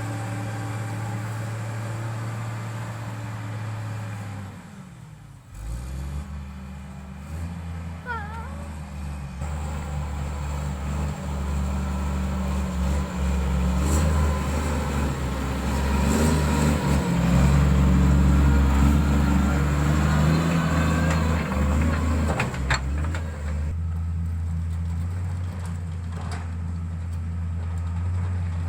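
Diesel engine of heavy road-building equipment running steadily. About five seconds in it dips briefly and comes back at a lower pitch, then grows louder through the middle before easing off. A few short squeaks are heard about eight seconds in, and a single click a little before the end.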